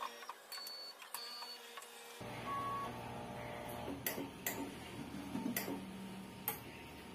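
Mindray BC-2600 hematology analyzer running its start-up tubing test. Its mechanism clicks sharply, then about two seconds in a motor starts running steadily, with more clicks over it.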